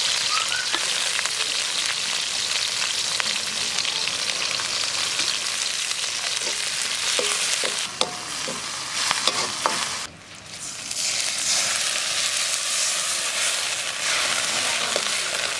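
Sliced onions and garlic sizzling in hot oil in a large karahi, with a metal slotted spoon scraping and knocking against the pan as they are stirred. The sizzle drops away briefly about ten seconds in, then comes back.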